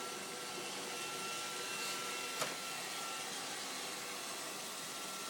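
Roomba robot vacuum running as it cleans: a steady whir of its motor and brushes with a faint high whine, and a single sharp click about two and a half seconds in.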